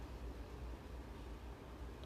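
Room tone: a steady low hum under faint even hiss, with no distinct events.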